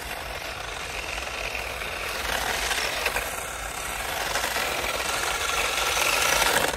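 Battery-powered 4x4 RC drift car running on asphalt on drift tyres: its motor and the tyres on the road make a steady hiss that grows louder as it comes closer.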